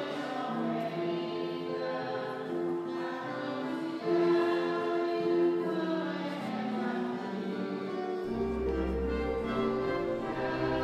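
Classical choral music with long held sung notes, moving from chord to chord; a deep bass note comes in about eight seconds in.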